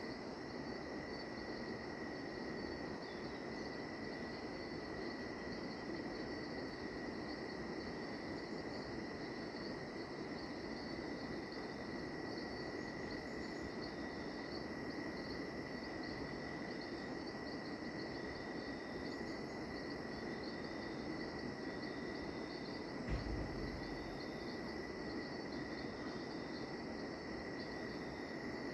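Rainforest insect chorus at dusk: many insects calling at once, a steady unbroken high tone under layers of fast pulsing, chirring calls higher up. A single brief low thump sounds late on.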